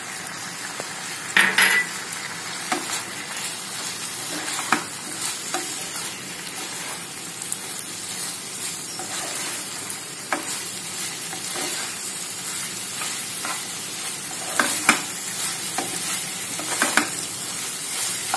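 Spatula stirring a vegetable and paneer filling in a frying pan over a gas flame, just after a cornflour-and-water mix has gone in. A steady sizzle runs under repeated scrapes and clacks of the spatula against the pan, the sharpest about a second and a half in.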